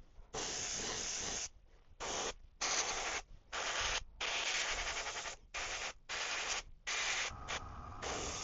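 Airbrush spraying paint in short hissing bursts, the trigger pressed and released about eight times, each burst lasting from a fraction of a second to just over a second. A faint steady hum joins in under the last few bursts.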